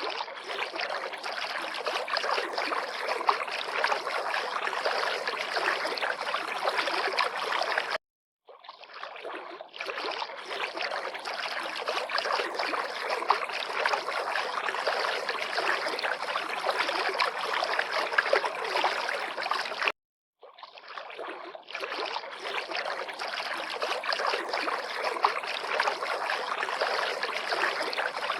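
River water lapping and trickling, a steady splashy rush. It cuts off abruptly twice, for about half a second each time, and swells back in.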